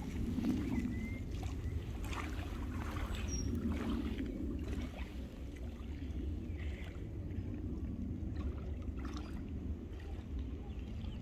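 Lakeshore ambience: a steady low rumble of wind on the microphone over small waves lapping at the shore, with a couple of short, high bird chirps in the first few seconds.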